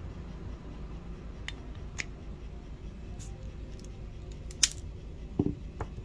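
Irwin Vise-Grip self-adjusting wire stripper stripping insulation from several flat wires at once: a few light clicks, then one sharp snap of the mechanism about two-thirds through, followed by a couple of softer knocks.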